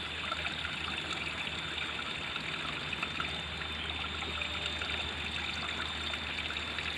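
Water trickling and running steadily, with a faint steady high tone above it.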